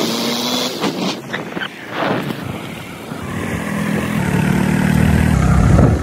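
Motorcycle running while riding over a rough, rutted dirt road, with wind noise on the microphone and several knocks from bumps in the first half; the engine grows louder over the last two seconds.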